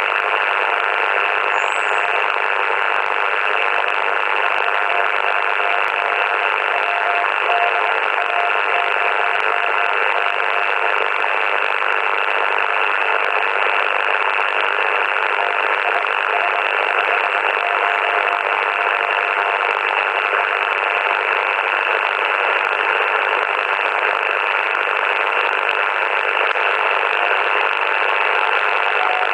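Yaesu FT-80C transceiver receiving in CW mode on 7.023 MHz: steady band noise and static from its speaker, with a faint Morse code tone keying on and off beneath it from time to time.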